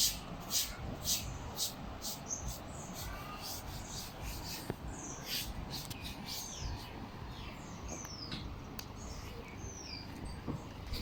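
Birds calling: several short, high whistles that slide downward, scattered through the stretch. During the first couple of seconds they sound over a rhythmic scraping of about two strokes a second.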